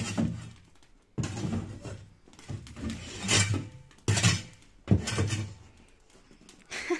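A metal snow shovel scraping snow off wooden steps: about five rasping strokes, each with a knock of the blade on the boards, stopping after about five and a half seconds.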